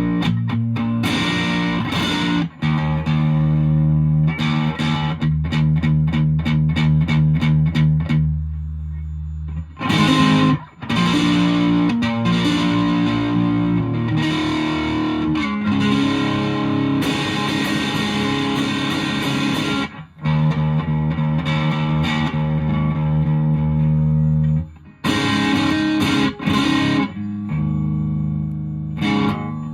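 Electric guitar played through a Boss DS-1 distortion pedal into a guitar amplifier, picked up by a phone's microphone. It plays distorted chords, some held and ringing and some strummed in a quick even rhythm, with a few brief breaks between phrases.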